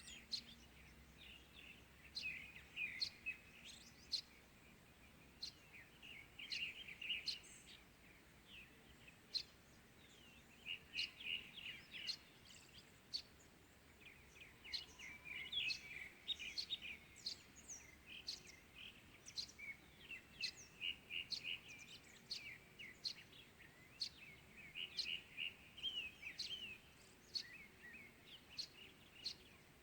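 Several small birds chirping and twittering, short high calls and quick trills in clusters every second or two over a faint steady background hiss.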